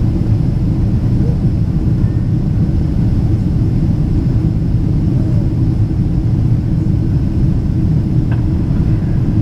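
Steady low rumble of a Boeing 777-300ER airliner heard from inside the cabin, with a faint high steady tone above it.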